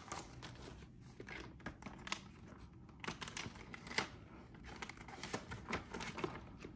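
Paper banknotes being counted by hand and tucked into a budget binder envelope: an irregular run of soft crisp paper flicks, rustles and ticks.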